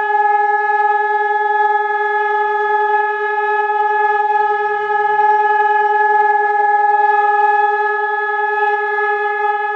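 Chilean fire-brigade siren sounding one long steady tone at constant pitch and level: the signal used in Chile to call out the fire department and to test the sirens.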